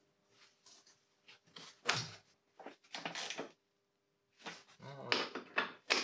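Parts and tools being handled while a car headlight unit is fitted back into place: several short bursts of clatter and scraping, the loudest about two seconds in and about five seconds in.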